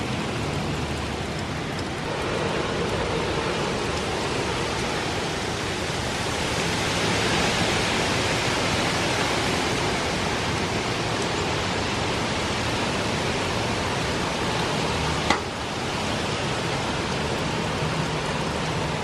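Hurricane wind and heavy rain blowing steadily, swelling in a strong gust about seven to ten seconds in. A single sharp knock about fifteen seconds in.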